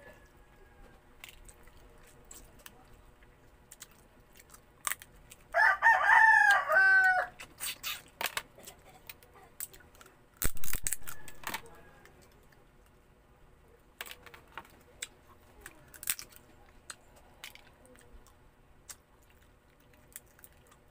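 A rooster crows once about five seconds in, a call of nearly two seconds that falls in pitch at the end, the loudest thing heard. Around it come scattered clicks and cracks of crab shell being bitten and pulled apart close to the microphone, with a sudden loud crunch about ten seconds in.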